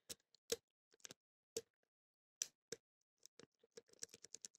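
Faint, irregular small clicks of a lock pick working the pins inside an Abus 54-series padlock with aluminium driver pins, held under a tension wrench; the clicks come closer together near the end.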